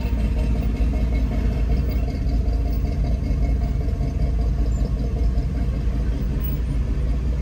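Steady low rumble of car engines at low speed, heard from inside a car's cabin, with a few steady engine tones above the rumble as a line of classic cars rolls slowly alongside.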